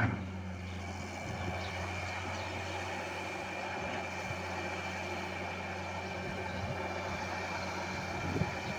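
Wheeled hydraulic excavator's diesel engine running steadily while it swings and digs sand, with a thin steady high whine over the engine's low hum.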